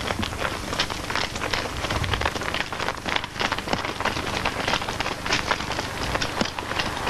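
Hooves of a small herd of black-and-white dairy cows walking on a paved road, a dense run of many overlapping clicks and scuffs.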